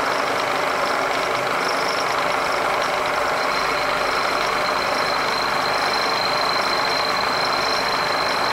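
Milling machine end mill cutting a step into a metal bar, with steady cutting noise over the running spindle. A steady high whine joins in about three and a half seconds in.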